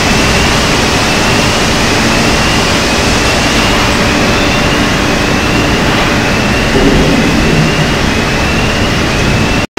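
Loud steady industrial roar in a steel plant's casting bay at the ladle turret, with molten steel being handled and sparks flying. A faint high whine slowly rises and restarts about every two seconds. The sound cuts out for an instant near the end.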